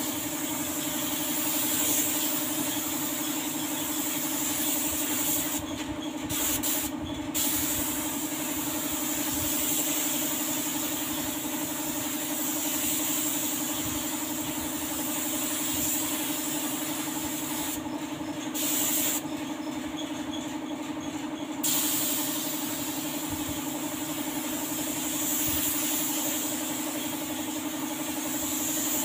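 Gravity-feed paint spray gun hissing as it sprays a car's body panels. The air cuts off briefly several times, twice near the start and for a few seconds past the middle, as the trigger is let go. A steady motor hum runs underneath.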